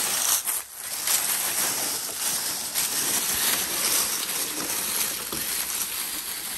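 1:10 scale RC crawler's tyres crunching and rustling steadily through dry leaves and brush on a woodland floor.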